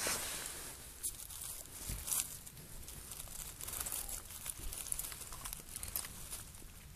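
Dry leaf litter and twigs rustling and crackling in irregular bursts, loudest at the start and again about two seconds in.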